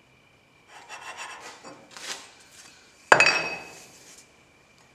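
Steel chuck backing plate being worked onto a metal lathe's spindle taper: metal scraping and rubbing on metal for a couple of seconds, then a sharp metallic clank about three seconds in that rings briefly as the plate goes home on the recut taper.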